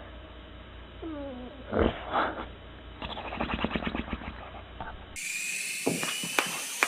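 A dog's vocal sounds: a whine falling in pitch, two loud sharp barks in quick succession, then a rapid rattling growl lasting about two seconds.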